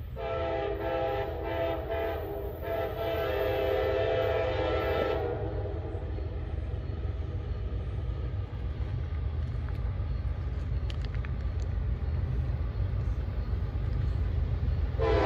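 Approaching CSX freight locomotive's air horn sounding for a grade crossing. It gives several short blasts in the first five seconds, runs into a longer held blast, and sounds again near the end. A low rumble of the train runs underneath.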